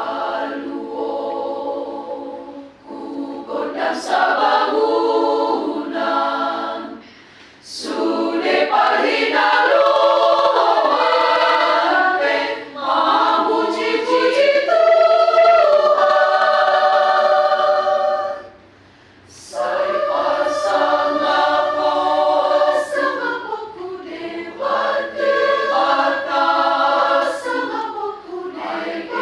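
Choir singing a cappella in several voice parts, in long sustained phrases with brief breaks about seven and nineteen seconds in.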